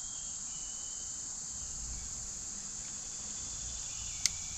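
Steady high-pitched drone of an insect chorus, with one sharp click about four seconds in.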